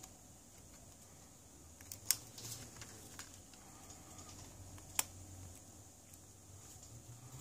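Thin metal tool clicking against the opened Huawei P20 lite's frame and internal parts: a few sharp clicks about two seconds in and a single one about five seconds in, amid light handling.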